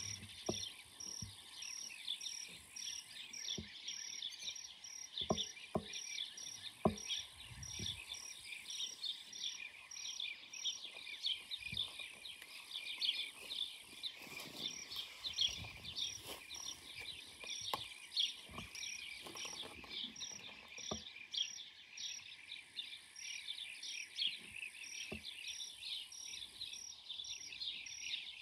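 A blue-cheeked bee-eater colony calling, many birds' short rolling calls overlapping in a continuous chatter that grows busier around the middle. Behind it is a high insect chirp repeating evenly about two to three times a second, with a few soft knocks.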